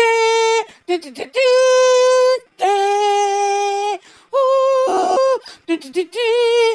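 A high voice singing a slow melody in long held notes, the last one wavering.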